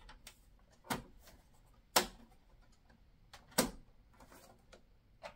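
A 3Com PCI network card's metal bracket clicking and knocking against the steel expansion-slot frame of a computer case as the card is fitted into a slot. There are four sharp knocks, the second the loudest.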